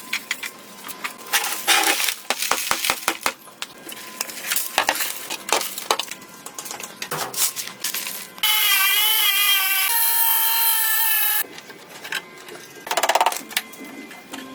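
Hand tool work: rapid scraping and sharp taps, then a power tool runs with a wavering whine for about three seconds and cuts off suddenly, followed by more scraping.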